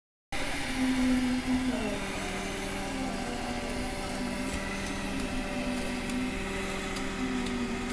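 An engine running steadily with a hum that drops slightly in pitch about two seconds in, under the chatter of a crowd of workers.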